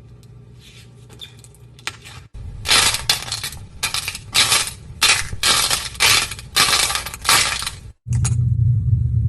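Crunchy slime being squeezed and pressed by hand: a run of about eight loud crackling, crunching bursts. Before them come a few faint light clicks.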